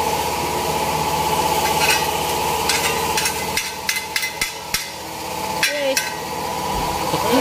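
A vehicle engine idling steadily. It drops back for a couple of seconds in the middle while a run of sharp metal clicks and taps from hand tools sounds, then carries on.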